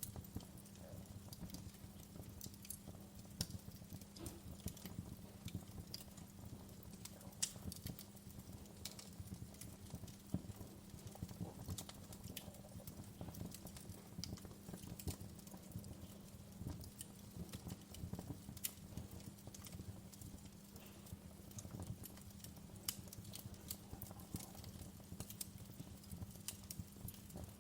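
Wood fire in a fireplace crackling: burning logs give off frequent, irregular sharp pops and snaps over a steady low hum.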